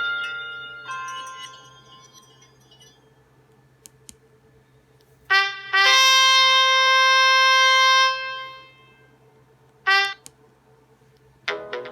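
Nokia Asha 302 ringtones. The previous tune fades out, then a ringtone plays two short notes, a long note held about two seconds, and one more short note. The next ringtone's quick notes start near the end.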